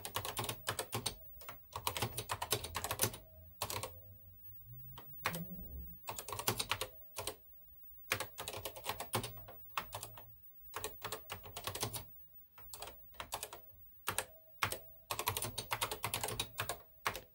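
Typing on the NASCOM 1 computer's keyboard as a short BASIC program is entered: runs of quick keystrokes broken by short pauses.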